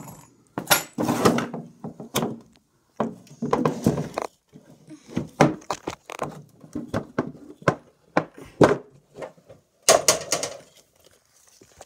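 Boxes being handled and opened by hand: a run of irregular knocks and thunks, with short stretches of rustling between them.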